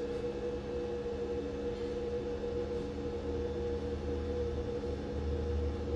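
Steady machine hum from a ZM-R730A BGA rework station running, made of several even tones, with a low rumble that swells about halfway through and again near the end.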